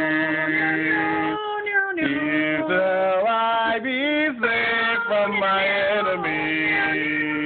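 A man and a woman singing a worship song together without accompaniment, as a round. They hold long notes, with pitch glides and shifting notes in the middle.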